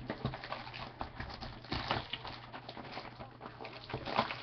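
Hands handling a cardboard trading-card box and its plastic wrapping on a stone countertop: irregular rustling and light knocks, a little louder about two seconds in and near the end.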